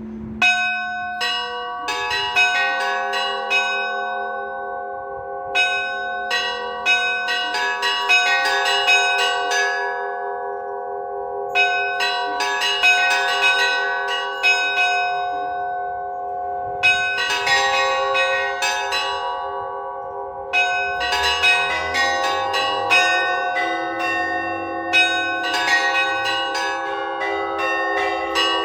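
Orthodox cathedral bells rung by hand in an improvised peal: quick clusters of strikes on the small high bells every few seconds over the long ringing tones of larger bells. A deeper bell joins in about two-thirds of the way through.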